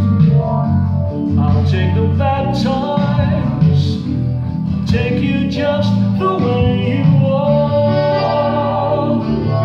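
A man singing a song while accompanying himself on a stage keyboard, with chords and a bass line under the vocal melody.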